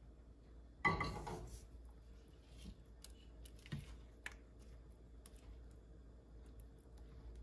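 A spoon stirring thick lentil curry in a stainless steel Instant Pot inner pot: faint scrapes and small clicks against the pot, with one louder knock about a second in that rings out briefly.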